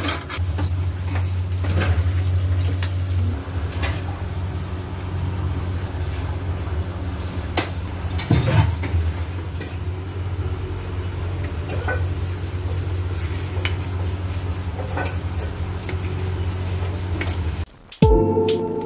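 Steel spoon scraping and clinking against a steel kadai while thick potato halwa is stirred, over a steady low hum. Near the end it cuts briefly to quiet, then music starts.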